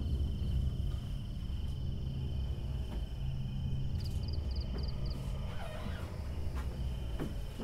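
Night ambience of crickets: a steady high trill, with a short run of about six quick chirps about four seconds in, over a low steady hum.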